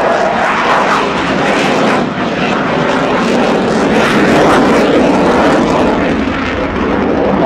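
Dassault Rafale fighter's twin Snecma M88 jet engines running at high power, a loud, continuous jet roar as the fighter manoeuvres, swelling slightly midway.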